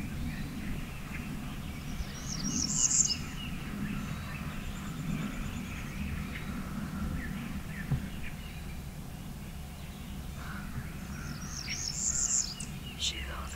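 Small songbirds chirping in the woods: a quick high-pitched cluster of chirps about two and a half seconds in and another near the end, with fainter calls in between over a low, steady background rumble.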